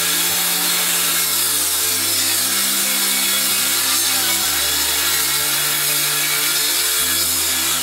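Table saw running and ripping a wooden board fed along its fence, a steady loud hiss of the blade cutting wood, over background music.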